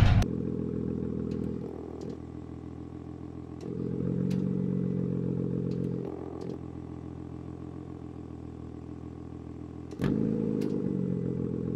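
BMW S55 twin-turbo straight-six in an M2 Competition idling through a valved catback exhaust, holding a steady pitch while its loudness steps up and down several times.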